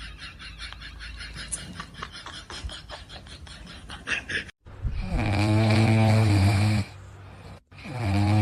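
Two long, loud snores, each lasting nearly two seconds, the second starting about three seconds after the first. They follow a few seconds of background music that cuts off abruptly.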